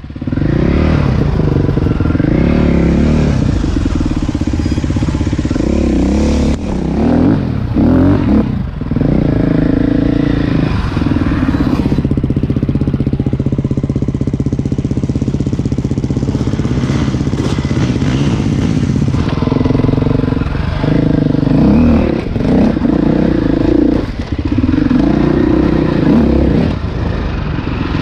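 Dirt bike engine running under load, its pitch rising and falling again and again as the throttle is worked, with a steadier stretch in the middle.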